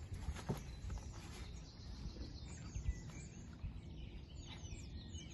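Outdoor ambience: a steady low rumble of wind on the microphone with small birds chirping in the background, mostly in the second half, and a soft knock about half a second in.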